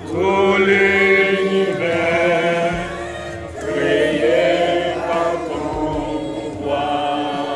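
A group of people singing a hymn unaccompanied, in long held phrases with short breaks between them.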